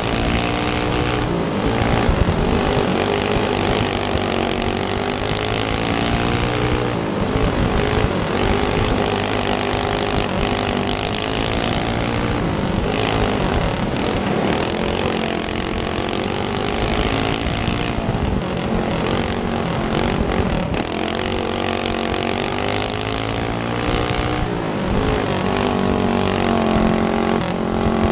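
Single-cylinder four-stroke clone engine of a dirt-oval racing go kart, heard onboard at racing speed, its pitch climbing and falling every few seconds as it laps the track.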